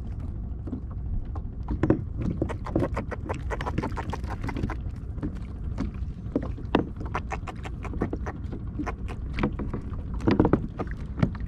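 Irregular taps and knocks on a plastic kayak hull as small fish are handled and unhooked over the fish well, with a few louder knocks near the end, over a steady low rumble of wind and water.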